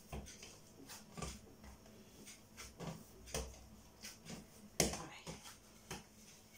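Quiet hand work with dough on a floured worktop: soft scattered taps and pats, with a sharper knock about five seconds in. A wooden rolling pin starts rolling the dough near the end.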